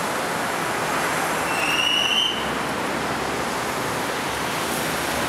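Blue CPTM electric multiple-unit commuter train approaching on the curve, a steady running noise, with a brief high, slightly rising tone about two seconds in.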